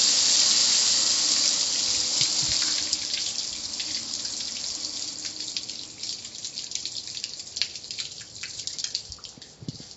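Car wash water spray running with a steady hiss, fading from about three seconds in and trailing off into scattered drips.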